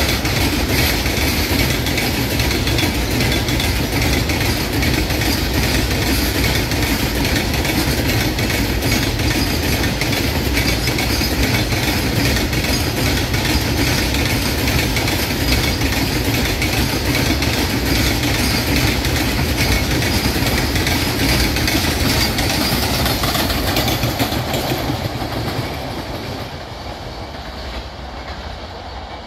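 Fully loaded BCNA covered freight wagons rolling past at about 60 km/h: a steady rumble of steel wheels on rail with a rhythmic clickety-clack over the rail joints. The sound fades away over the last few seconds as the tail of the train draws off.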